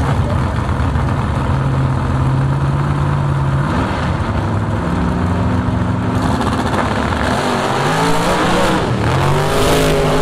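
A car engine running at held speeds, its pitch changing abruptly about four and six seconds in, then rising and falling several times near the end.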